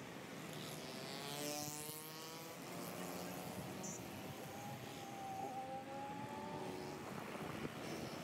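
Traffic on a busy city road: cars, motorbikes and auto-rickshaws going by, with one engine passing close between about one and two and a half seconds in, and another engine note holding steady around the middle.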